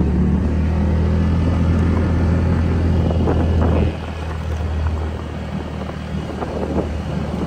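Honda Vario scooter's single-cylinder engine running steadily while being ridden, a low even hum that becomes quieter about four seconds in.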